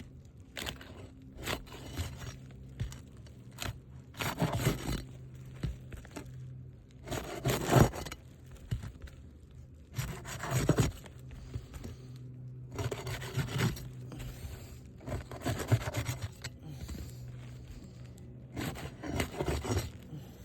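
Metal roof snake scraping under brittle three-tab asphalt shingles: about seven rasping strokes of around a second each, with fainter rubs between them, as the tool is worked under the tabs to free a damaged shingle.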